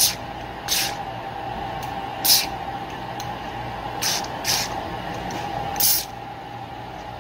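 Aerosol carburetor cleaner sprayed in six short hissing bursts into the passages of a chainsaw carburetor part, flushing out the gummed-up dirt.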